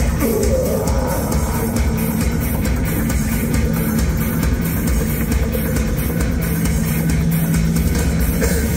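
Live industrial electronic rock played by a band on stage, loud, with a steady driving drum beat and heavy bass.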